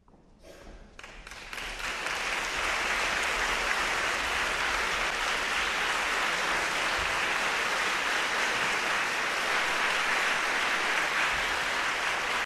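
Audience applauding. A few scattered claps swell into steady, full applause within about two seconds, which then cuts off suddenly.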